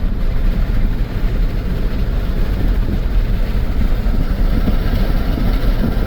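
Vehicle driving on a muddy dirt road: a steady low rumble of engine and tyres.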